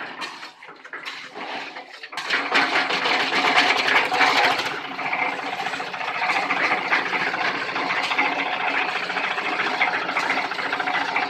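A concrete mixer running. About two seconds in it becomes much louder and keeps up a steady, fast rattling clatter.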